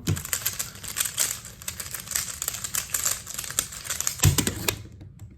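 Rubik's cube being turned very fast: a rapid, dense clatter of plastic layers clicking, with a heavier knock about four seconds in, after which the clicking stops.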